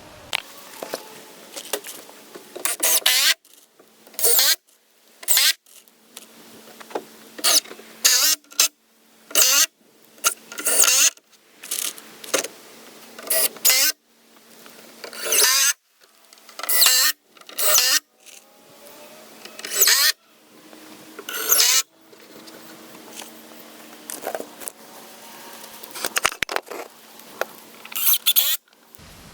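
Power drill driving screws into wooden boards in a series of short runs, each building up and stopping abruptly.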